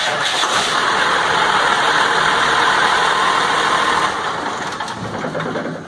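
Cummins 5.9 diesel engine running, then shut off: it eases down after about four seconds and dies away at the end.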